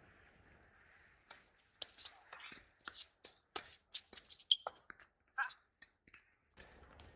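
Tennis ball being hit back and forth on a hard court: racket strikes and ball bounces as a quick, irregular series of sharp pops, with footsteps and shoe scuffs, the loudest pop about four and a half seconds in.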